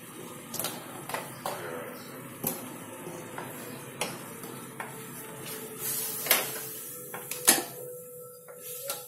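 Wooden spoon stirring a creamy sauce in a nonstick frying pan, knocking and scraping against the pan at irregular intervals over a steady hiss.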